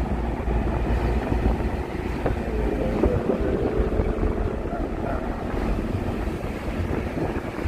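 Steady low road rumble and wind noise from inside a moving Ford Mustang convertible, with wind buffeting the microphone.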